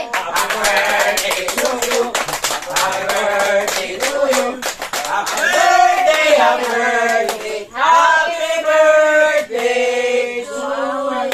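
A small group singing a birthday song together, with steady hand clapping at about four claps a second. About five seconds in the clapping stops and the singing goes on in longer held notes.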